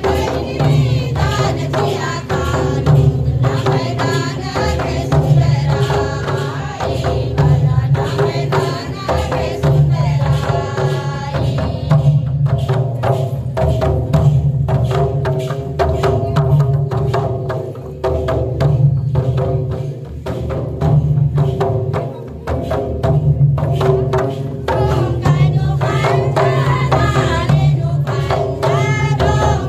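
Devotional folk dance music: singing over a steady, driving beat of hand drums.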